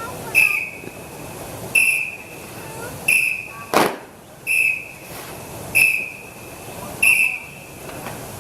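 A whistle blown in short, sharp blasts about every 1.2 to 1.4 seconds, six times, setting the count for a group martial-arts routine. A single sharp thump comes about four seconds in.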